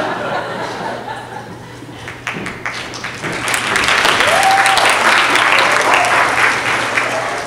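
Audience applause, building about two seconds in, then easing off near the end, with a few voices calling out over the clapping.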